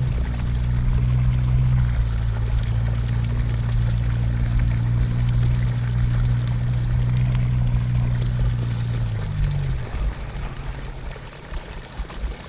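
A steady low motor hum that winds down and stops about nine and a half seconds in, over a continuous trickle of running water.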